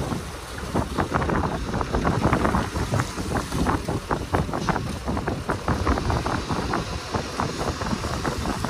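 Heavy earthmoving machinery working: a low engine rumble under a rapid, irregular run of clanks and knocks that starts about a second in.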